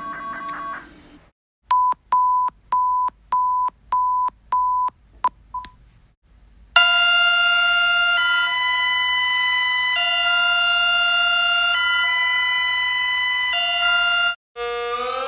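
Emergency-alert alarm tones played in sequence. First come about eight short electronic beeps at one pitch, roughly two a second. Then a loud, steady, chord-like alarm tone switches back and forth between two pitches about every two seconds, and near the end a siren starts winding up in pitch.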